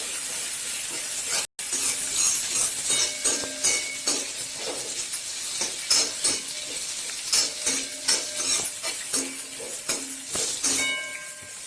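A spoon stirs and scrapes around a kadai in repeated strokes while garlic, small onions and thuthuvalai leaves sizzle steadily as they sauté. The sound cuts out completely for an instant about a second and a half in.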